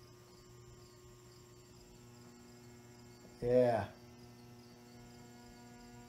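Lesslie Locke spinner ceiling fan motor buzzing with a faint, steady electrical hum as it struggles to turn on a solid-state variable speed control; a slightly higher hum tone strengthens about two seconds in. The owner puts the struggling down to a stiff lower bearing that needs work, possibly replacement.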